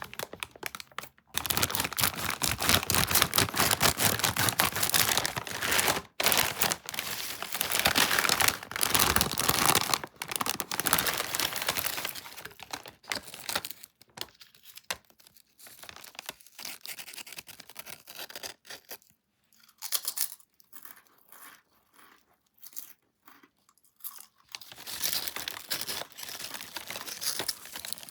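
Crunching and crinkling of a packet of paprika chips being handled and opened. The crackling is dense for the first dozen seconds, thins to scattered crackles in the middle, and picks up again near the end.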